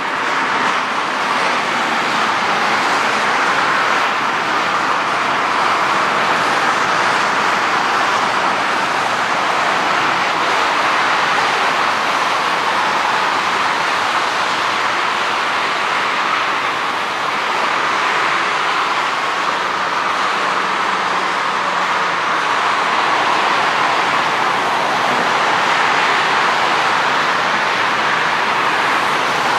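Steady rushing noise of jet engines at an airport, even in level throughout.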